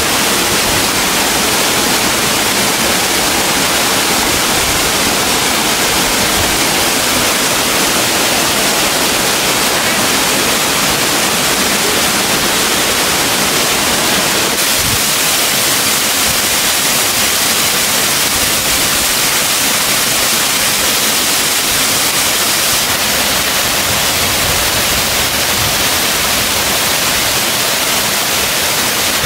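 Steady, loud rush of water from a stream waterfall, an even roar with no breaks.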